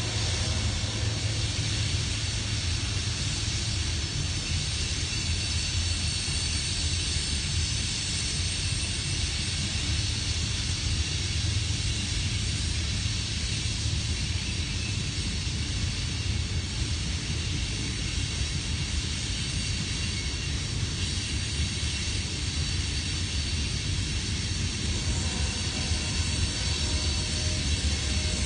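Freight train of coal hopper cars rolling past on the rails: a steady, unbroken low rumble with a hiss of steel wheels on track.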